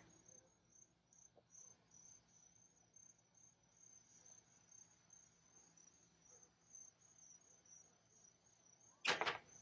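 Crickets chirping faintly, a steady high pulsing trill, with one short loud sound near the end.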